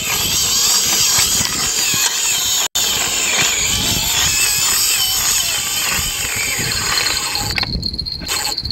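Drag of a Daiwa Saltiga 6000GT spinning reel running steadily as a hooked bluefin tuna pulls line off the spool, with a faint wavering squeal. It breaks off for a moment about two and a half seconds in.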